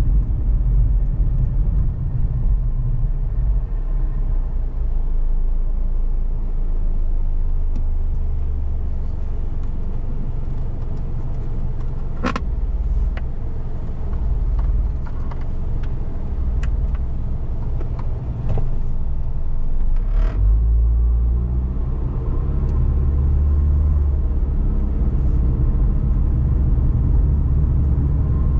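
Steady low rumble of a car driving on a road, with a few short sharp clicks around the middle; the rumble eases a little and then swells again about two-thirds of the way through.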